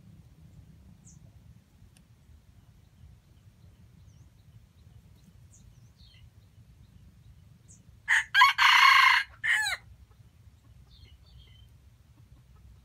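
Wild junglefowl rooster crowing once, a short crow of under two seconds starting about eight seconds in, with a brief first note and a falling tail. Faint small-bird chirps come and go.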